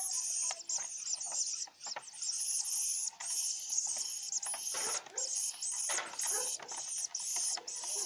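Orphaned baby hoopoe nestlings begging for food: a continuous stream of short, high-pitched squeaky calls, many each second.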